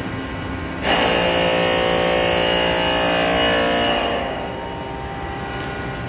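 Thermostatic air vent on a steam heater hissing with a whistling edge as air bleeds out of the steam line, starting suddenly about a second in and dying down after about three seconds. The vent is purging air so steam can reach the heater.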